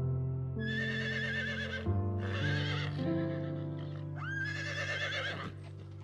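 Horse whinnying three times over background music, each call high and wavering in pitch; the third call starts with a rising sweep.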